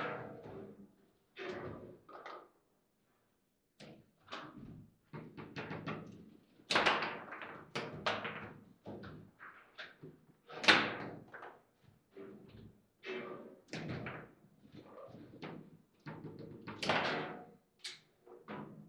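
Table football in play: the hard ball knocking against the plastic players and the table walls, and rods banging, in quick irregular knocks and slams. There is a short lull about three seconds in, and the hardest hits come around seven and eleven seconds in.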